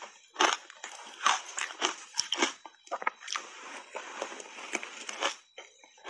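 Close-miked crunching of shaved ice coated in matcha powder as it is bitten and chewed: a rapid run of crisp crunches with short pauses between them.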